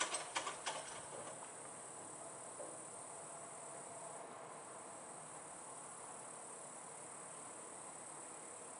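Crickets trilling steadily at night with no thunder at all, only a faint high chirring over quiet background noise. A quick run of sharp clicks, the loudest thing here, comes in the first second.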